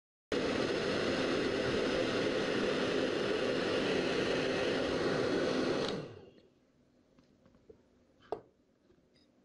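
Hair dryer blowing air through a cardboard air tunnel, a steady loud rush with a low hum. About six seconds in it stops, winding down over half a second, and a single click follows near the end.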